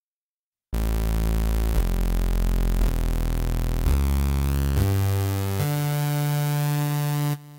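Synthesizer playing a sequence of six sustained, buzzy notes, each held for about a second, with the bass stepping generally upward. It starts after a short silence and cuts off suddenly near the end.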